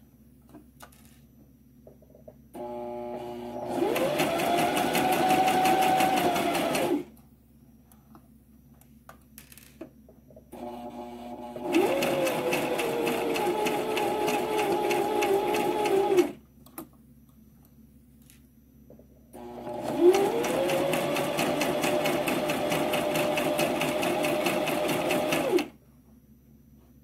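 Brother XM2701 sewing machine sewing a zigzag stitch in three runs of about four to six seconds each, with rapid, even needle strokes. The motor rises in pitch as it speeds up at the start of each run, and each run cuts off suddenly.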